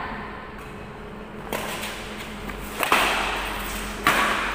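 Badminton racquets striking a shuttlecock during a rally: three sharp hits about a second and a half apart, the last two loudest, each leaving a short echo in the large hall.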